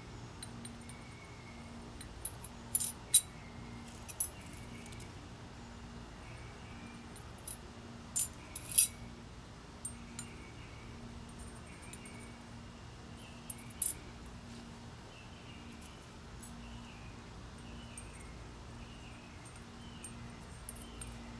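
Thin stainless steel grill rods clicking and clinking against a steel tube as they are slid into its holes and set into slits. A scattered handful of sharp metallic clicks comes in the first half, loudest about three and nine seconds in.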